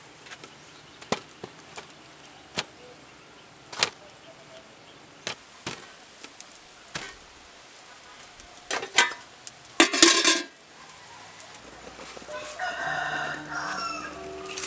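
Purple corn cobs clicking and knocking against each other and a metal pot as they are handled, a scattering of sharp clicks. About ten seconds in comes a brief loud noisy burst, and near the end a rooster crows.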